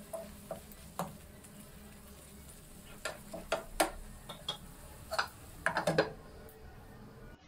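Spatula stirring a thick tomato and tamarind mixture in a metal frying pan: irregular light knocks and clicks of the spatula against the pan. A quick cluster of clinks near the end as a glass lid is set on the pan.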